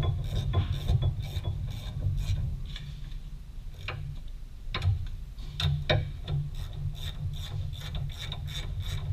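Ratchet wrench with an E18 Torx socket tightening the brake caliper bolts, its pawl clicking quickly in short runs with a pause partway through.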